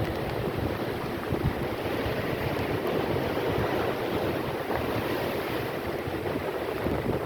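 Storm waves crashing and washing against an embankment in a steady, dense rush, with wind buffeting the microphone.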